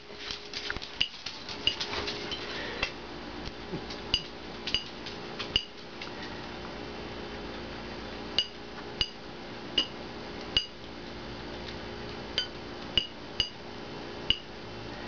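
Welsummer hen pecking food off a ceramic plate: sharp single clinks of beak striking the dish, each with a brief ringing tone. They come several a second at first, then settle to about one a second.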